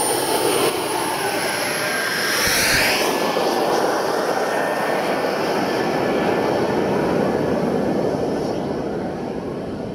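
Model jet's 16 kg-thrust gas turbine running at high power on the runway, a steady rushing blast with a high whine that dips in pitch about two to three seconds in.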